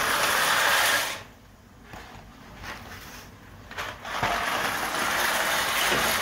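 Dry penne pasta rattling out of a cardboard box into a pot of hot water, in two spells: one lasting about a second at the start, and a longer one from about four seconds in.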